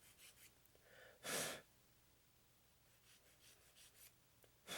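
Near silence, with one short audible breath about a second and a half in and a faint click near the end.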